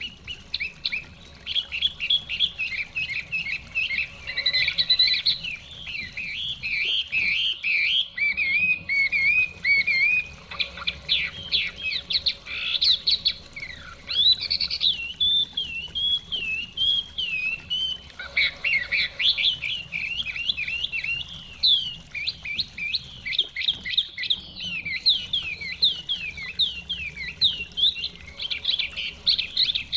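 Hwamei (Chinese melodious laughingthrush) singing a long, varied, nearly unbroken run of rapid whistled phrases, with a faint even rush of a flowing stream underneath.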